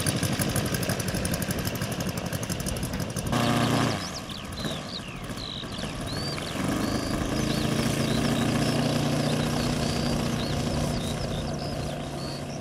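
The engine of a large-scale radio-controlled P-51 Mustang model running with a fast pulsing beat as the model taxis. About three seconds in there is a sudden change with a short louder burst, then a quieter stretch. From about halfway through the engine holds a steady, even note, fading slightly near the end as the model moves away down the runway.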